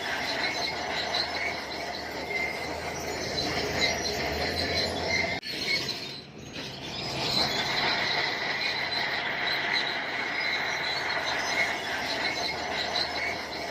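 Shantui crawler bulldozer working, its steel tracks squealing over the steady sound of the diesel engine. The sound dips briefly about halfway through, then carries on.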